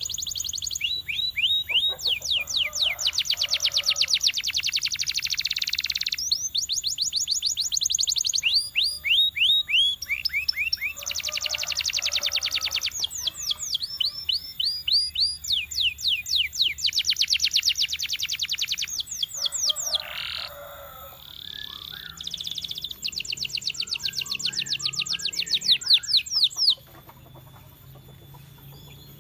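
Canary singing: long phrases of rapid, evenly repeated high notes and rolling trills, separated by short breaks, until the song stops a couple of seconds before the end.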